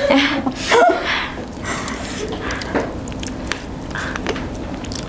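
Close-miked eating sounds: chewing, with hands working through the food, and scattered short clicks and taps.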